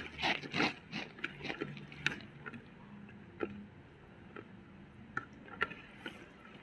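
Fingers mixing rice with egg curry by hand, the wet rice squishing against the plate with scattered soft wet clicks and smacks, busiest in the first second.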